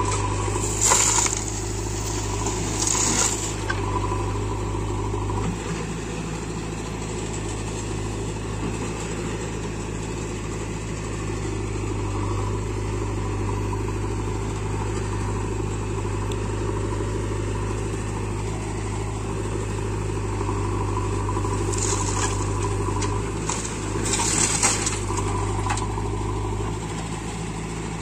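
Diesel engines of a JCB 3DX backhoe loader and a Mahindra tractor running steadily. Loads of soil pour from the backhoe's bucket into the tractor trolley in short rushes, twice near the start and twice near the end.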